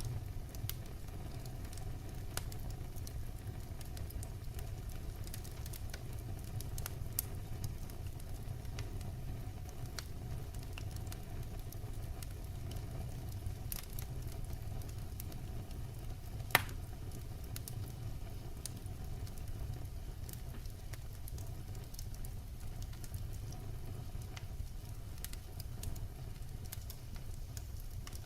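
Firewood burning: a steady low rumble with scattered small crackles and one louder, sharp pop about halfway through.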